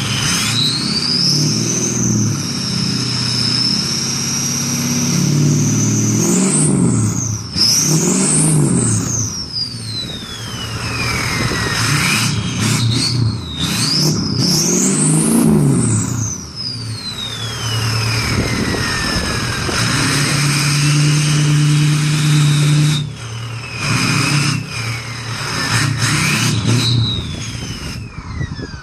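Ford 6.0 Power Stroke turbodiesel V8 revved several times, its turbocharger whistling high above the engine. The whistle climbs with each rev, then glides down slowly as the turbo spools down.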